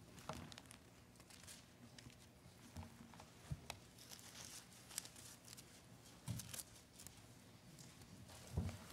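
Faint rustling of thin Bible pages being turned, with scattered soft clicks and taps, over a steady low room hum.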